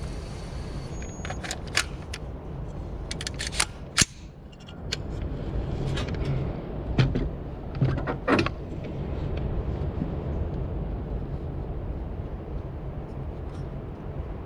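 Several sharp clicks and knocks over a steady low rumble, with the loudest about four seconds in and a group of three about seven to eight and a half seconds in.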